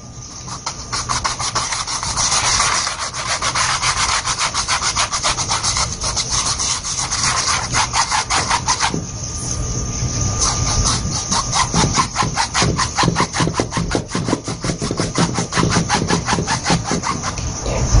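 A wide, flat bristle brush scrubbing rapidly back and forth over a small oil-painted canvas, several strokes a second, with a brief break about nine seconds in. This is a clean, dry brush blending wet sky paint.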